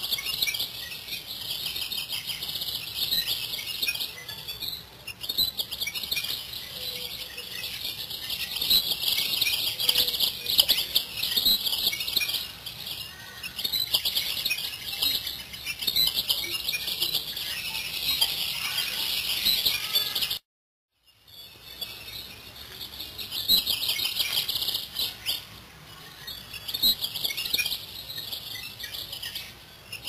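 Many small birds chirping and twittering together in a dense, continuous chorus. The sound cuts out completely for about half a second roughly two-thirds of the way through, then starts again.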